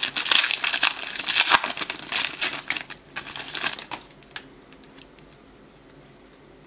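Foil trading-card pack wrapper crinkling and tearing open for about four seconds, then only a few faint ticks as the cards are slid out and handled.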